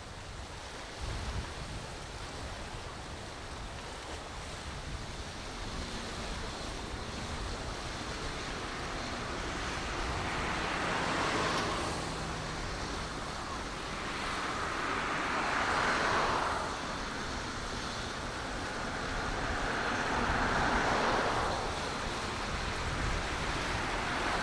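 Seaside roadside ambience: sea waves washing against a tetrapod breakwater and cars passing on the coastal road, the noise swelling and fading three times in the second half.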